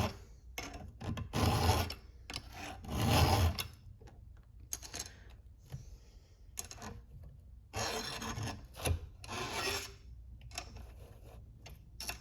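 Oregon hand file rasping across the cutters of a chainsaw chain in separate strokes as the chain is sharpened, the heaviest strokes in the first few seconds and lighter, more spaced strokes after.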